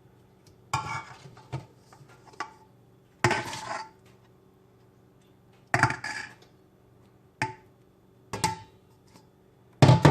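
A spoon knocking and scraping against dishes about six times at uneven intervals while a runny casserole filling is spooned out and spread. Some of the knocks give a short ringing clink.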